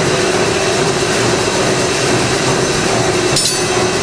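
Liberty ship's triple-expansion reciprocating steam engine running, filling the engine room with a loud, steady mechanical din and a steady hum. About three and a half seconds in, a brief metallic ring comes from the engine order telegraph as its handle is worked.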